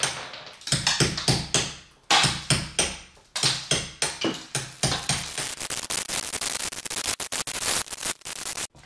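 Hammer chipping plaster and filler off a wall along a marked line, to level it for a door trim. It gives a run of sharp knocks with crumbling debris, about two or three blows a second at first and quicker, rapid strikes from about halfway. It cuts off suddenly near the end.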